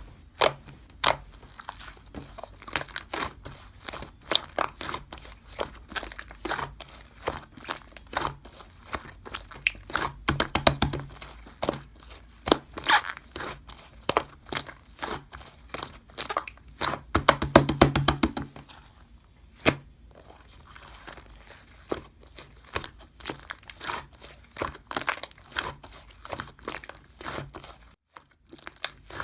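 Slime being pressed, stretched and squished by hand, making a string of wet clicks and pops. There are two bursts of rapid crackling, about ten seconds in and again near eighteen seconds.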